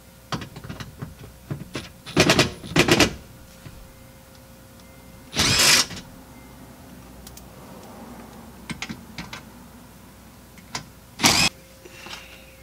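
Cordless impact driver run in four short bursts, backing out the splash-guard screws under a car, with a fast hammering rattle in each burst; the third burst runs longest. Small clicks and taps of the screws and tool are heard between the bursts.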